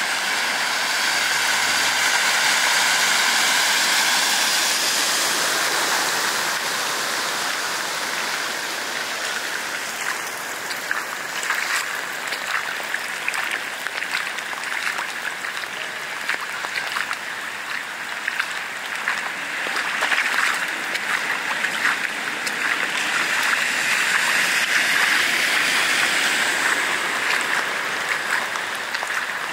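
Rain pouring onto a flooded street: a steady rush of water with many small splashes and patters.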